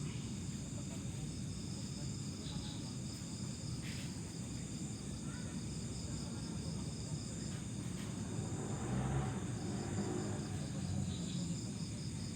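A steady chorus of night insects chirping in a fast, even pulse, over a low rumble of background noise.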